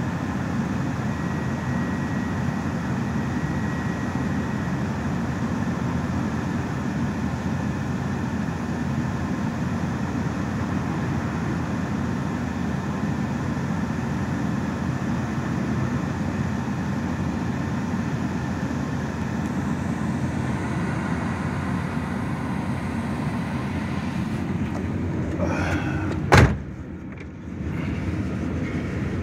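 Steady low rumble of an idling vehicle, heard from inside its cab. Near the end comes a single sharp click, and the rumble briefly drops away before it returns.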